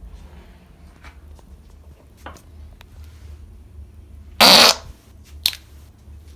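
A person breaking wind: one loud fart lasting about half a second, about four and a half seconds in, then a much shorter blip about a second later, over a low steady room hum.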